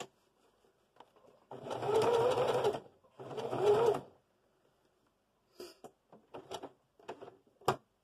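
Singer sewing machine stitching a close zigzag (satin) stitch in two short runs of about a second each, with a brief stop between them, as the appliqué edge is sewn a little at a time around a curve. After that come a few light clicks and handling sounds, with one sharp click near the end.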